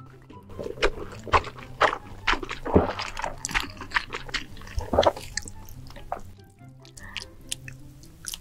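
Close-miked eating: a person biting and chewing food, a quick run of sharp crunchy clicks and wet mouth sounds that thins out after about six seconds, over soft background music.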